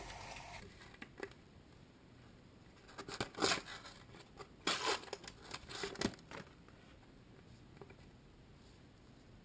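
A foil Panini sticker packet crinkling and tearing as it is pulled open by hand, in several short crackly bursts about three to six seconds in.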